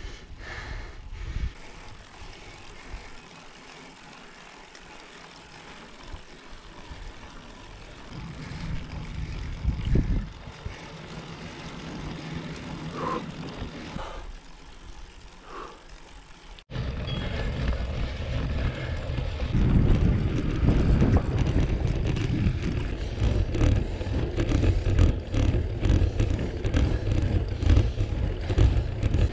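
Wind rushing over an action camera's microphone while riding a road bicycle, a steady low rumble. It cuts abruptly about two-thirds of the way in to a much louder, buffeting rumble.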